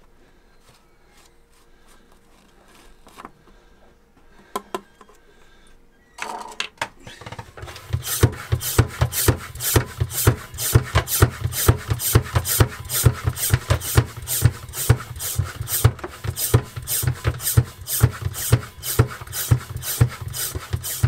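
Hand-operated oil extraction pump being pumped in quick, steady strokes, each a rasping rub with a low thump, trying to suck warm engine oil from a Volvo Penta D2-55 diesel's sump up through a pipe in the dipstick tube. Pumping starts about six seconds in, after a few faint clicks of handling.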